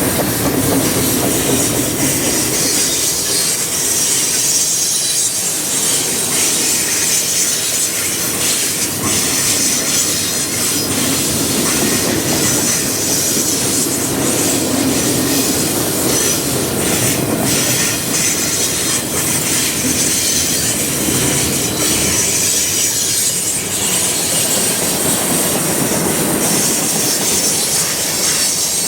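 Freight cars of a long Canadian National freight train rolling past close by: a steady rumble and rattle of steel wheels on rail, with scattered clicks over rail joints and a high wheel squeal on the curve.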